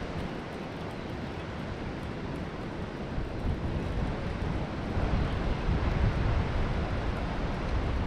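Steady rushing noise of wind buffeting the microphone over flowing river water, swelling a little in the second half.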